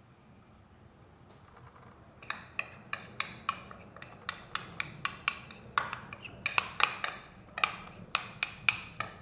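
Metal spoon repeatedly tapping against the rim of a small bowl to knock out the last of a thick batter: sharp, bright clicks, two to four a second, starting about two seconds in.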